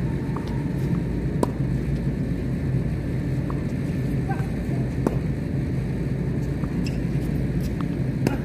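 Tennis ball struck by rackets during a doubles rally on a hard court: three sharp pops about three and a half seconds apart, with fainter ticks between. Under them runs a steady low rumble.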